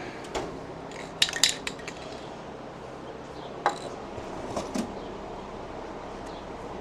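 Metal tools or hardware clinking as they are handled: a quick clatter of clinks about a second in, a single sharp clink a little before four seconds, and a couple of softer knocks shortly after, over a steady background hiss.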